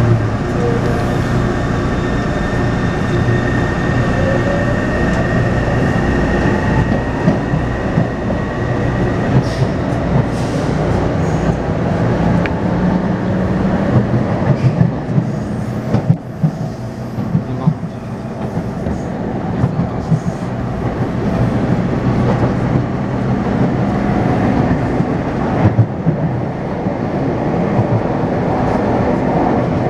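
Taipei Metro C301-type train with retrofitted inverter propulsion running, heard from inside the car: steady wheel and rail rumble with clickety-clack and electric whine tones, one whine rising in pitch in the first few seconds.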